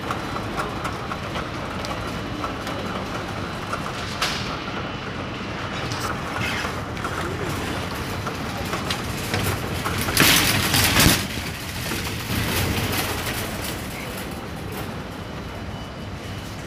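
Shopping-mall travelator (inclined moving walkway) running with a steady mechanical hum and rattle. About ten seconds in there is a louder burst of noise lasting about a second.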